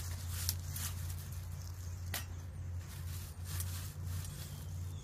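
Dry leaves and twigs rustling and crackling as a wire cage live trap is worked into place on the ground, with one sharper click about two seconds in, over a steady low rumble.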